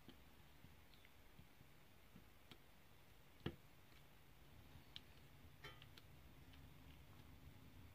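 Faint, irregular clicks of a diamond-painting pen setting square resin drills onto the canvas, with one louder click about three and a half seconds in.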